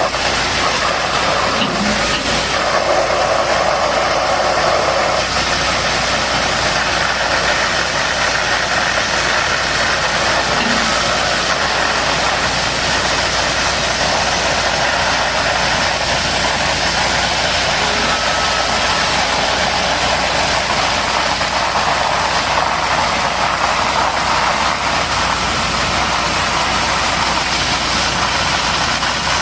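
An engine idling steadily, with a continuous hiss over it.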